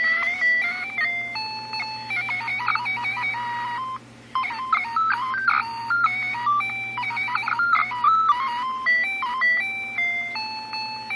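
Casio MA-10 alarm clock's electronic beeper playing a garbled alarm melody: rapid electronic tones jumping about in pitch at random, dropping out for a moment about four seconds in. The random beeping comes from the clock's failing circuit, which makes it behave as if circuit-bent.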